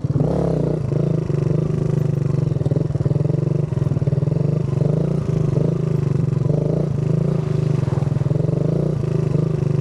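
Kawasaki Versys 650 parallel-twin motorcycle engine running at steady revs, a loud, even drone with a rapid pulsing throb.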